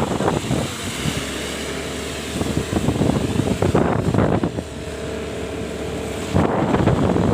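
Wind rushing and buffeting over the microphone on a moving motorbike, with the motorbike's running sound underneath and a steady hum in the second half.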